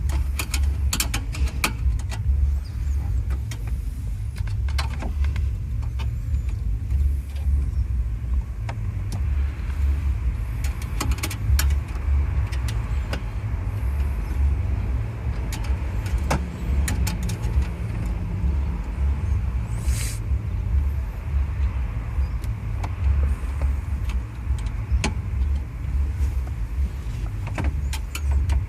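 Car stereo head unit being worked into its dashboard mounting cradle: scattered clicks and knocks of plastic and wiring over a steady low rumble, with a short hiss about two-thirds of the way through.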